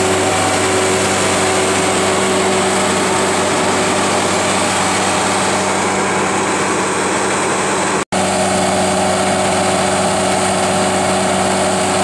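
Al-Jon Super 400 logger/baler's Cummins 5.9 inline-six diesel power unit running steadily at a constant speed, driving the hydraulics while the operator's cab is raised on its mast. The sound cuts out for an instant about eight seconds in.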